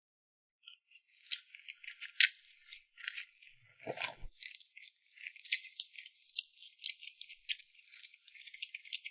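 Close-miked eating sounds: rapid wet clicks and smacks of a mouth chewing cream cake, growing denser in the second half, with one brief low thud about four seconds in.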